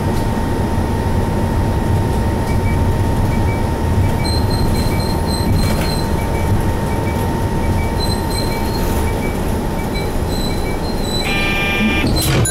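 Running sound of a Hino Blue Ribbon HT (KC-HT2MMCA) two-step city bus, heard from inside the cabin as it drives along: the steady low rumble of its 9.9-litre M10U diesel and road noise, with a thin steady whine. A brief higher electronic-sounding tone comes in near the end.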